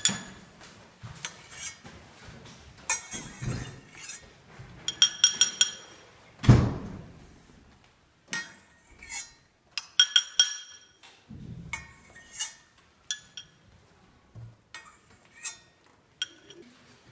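Metal teaspoon clinking and scraping against a stainless steel pot and a glass cup while detergent foam is scooped off the water, with short ringing clinks in clusters and one louder dull knock partway through.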